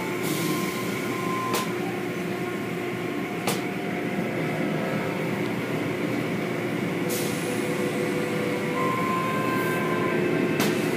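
Automatic tunnel car wash running: water spray and spinning cloth wash strips working over the car, a steady rumbling wash with a few sharp slaps or knocks, heard from inside the car.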